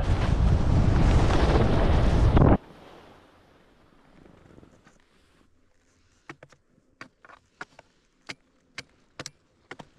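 Wind rushing over the camera microphone during a ski descent, loud and steady, cutting off abruptly about two and a half seconds in. After that it is near silence, broken in the second half by a dozen or so short, sharp clicks and taps at an uneven pace.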